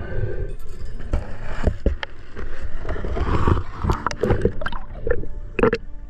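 Underwater sound from a submerged camera: a steady low rumble with gurgling bubbles and a run of sharp clicks and knocks as a diver handles a speared fish on the spear shaft. The clicks come thicker in the second half.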